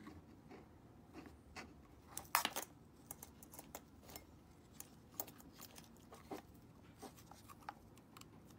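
Faint handling noise from a braided headset cable and its plastic USB plug being turned over in the hands: scattered small clicks and rustles, with a louder cluster of clicks about two and a half seconds in.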